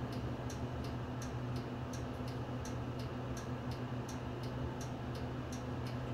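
City bus's turn-signal relay ticking steadily, about three clicks a second, over the low, steady hum of the Nissan Diesel Space Runner's engine idling.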